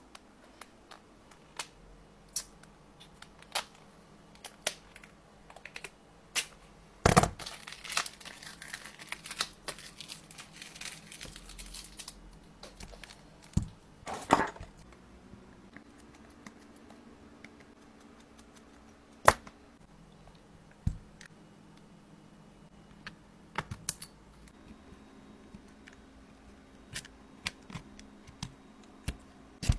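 Long acrylic fingernails tapping and clicking on a smartphone's glass and frame, in scattered single clicks and short clusters. About seven seconds in comes a few-second stretch of scratchy tearing noise.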